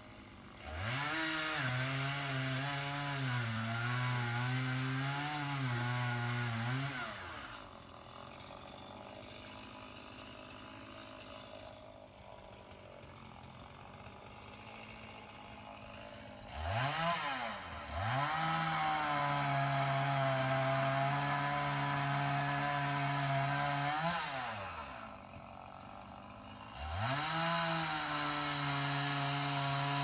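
A small motor, like that of a chainsaw, spins up to a steady high whine and winds back down, three times. The first run wavers in pitch; the second starts with a brief blip before catching; the third begins near the end.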